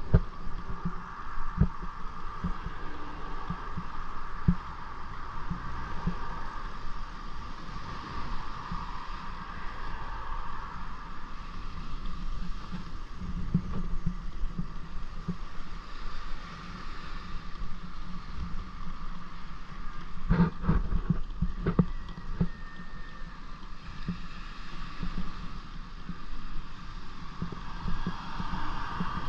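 Wind buffeting the microphone outdoors: irregular low rumble over a steady hiss, with a couple of louder bumps about twenty seconds in.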